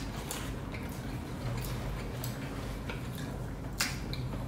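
Faint wet clicks and squishing of food being eaten and handled, with one sharper click a little before the end, over a steady low hum.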